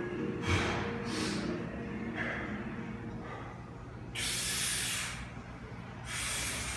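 Heavy breathing of a lifter holding a loaded barbell on his back between squat reps: a few short breaths, then two longer, louder breaths about four and six seconds in.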